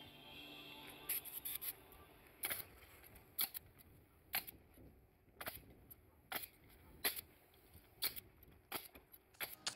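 Pneumatic coil roofing nailer firing nails to fasten a roll-out ridge vent along the roof ridge. It gives sharp single shots about once a second, with a quick run of several shots just after the first second.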